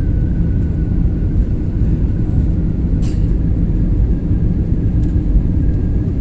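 Airbus A320 cabin noise on the final moments of a landing approach: a steady low rumble of engines and airflow heard from inside the cabin, with a faint steady whine and a brief click about halfway through.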